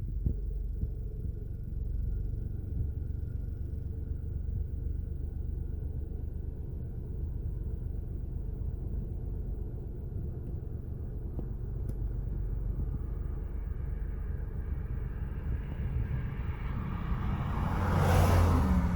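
Steady low vehicle rumble. A louder vehicle pass swells up over the last few seconds and peaks near the end.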